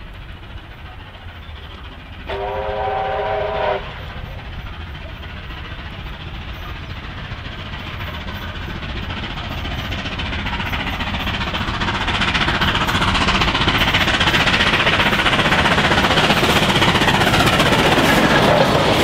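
The whistle of 3801, a streamlined NSWGR C38 class 4-6-2 steam locomotive, sounds one blast of about a second and a half with several tones together. After it the train's running noise, exhaust and wheels on the rails, grows steadily louder as the locomotive comes up and passes close by.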